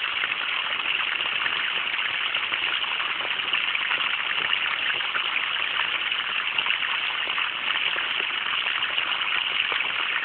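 Water running from a garden hose into a taro patch, a steady rushing splash.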